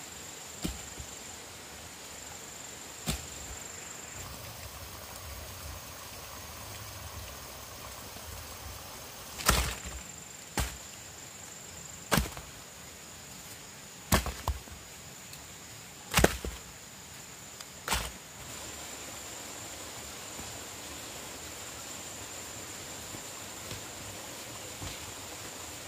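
Sharp chopping strikes of a blade into wood, about nine at uneven intervals, the loudest coming close together in the middle of the stretch. A steady high-pitched whine runs behind them.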